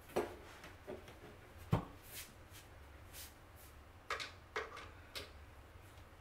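Hand screwdriver driving screws into a flat-pack desk panel: scattered light clicks and knocks, with one heavier thump about two seconds in.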